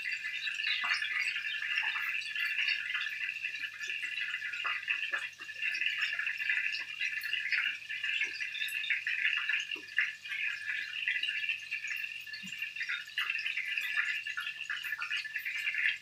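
Minced pork and shrimp patties shallow-frying in oil in a pan: a steady sizzle with many small crackles and pops.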